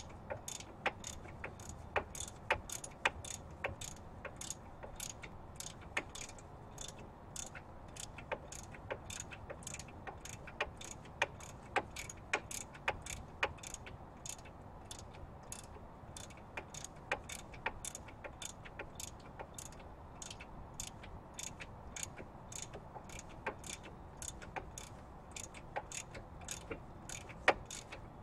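Hand socket ratchet clicking in quick, uneven runs, about two or three clicks a second, as a bolt is run in during brake reassembly.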